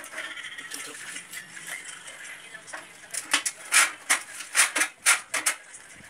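Hand tool scraping rust off the sheet-metal panel of an air conditioner condenser. Light scratching at first, then about half a dozen quick, loud rasping strokes from about halfway through.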